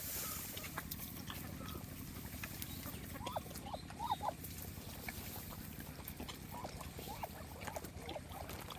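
Farmyard chickens and ducks calling: scattered short clucks with quick pitch bends, a cluster a few seconds in and more a little later, over a steady low hum.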